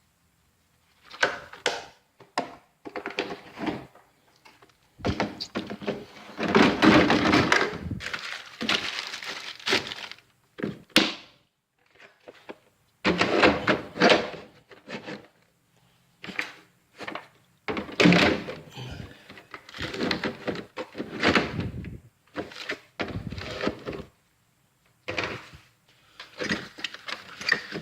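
Metal hand tools clattering and clunking as they are moved about in a Snap-on toolbox drawer, in irregular bursts with short pauses between.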